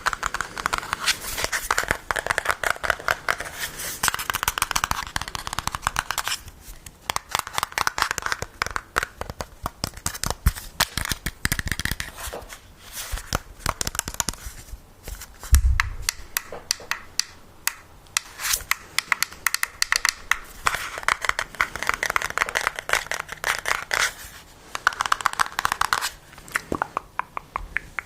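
Close-miked ASMR tapping and scratching on an object: rapid clicks in dense runs, with one low thump about halfway through.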